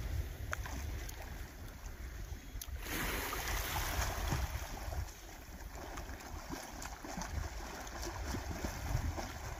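Wind buffeting the microphone over calm sea water washing gently at a pebble shore, with faint scattered splashes.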